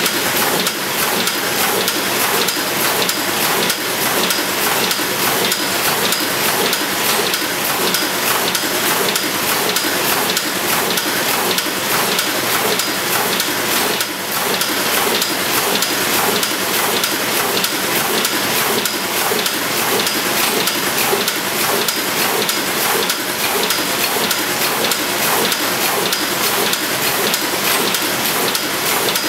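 Romayor 314 sheet-fed offset printing press running: a loud, steady, dense mechanical clatter with a fast, even rhythm, with a brief dip about halfway through.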